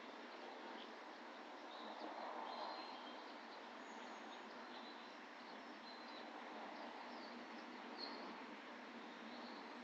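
Songbirds giving short, high chirps scattered throughout, faint against a steady background hiss.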